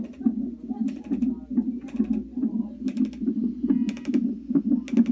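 Fetal heart monitor's Doppler ultrasound transducer playing the unborn baby's heartbeat as a fast, rhythmic whooshing pulse, with sharp clicks about once a second.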